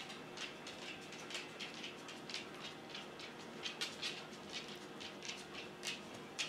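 Lipstick being stroked across the lips, a run of short, faint swishes about three a second.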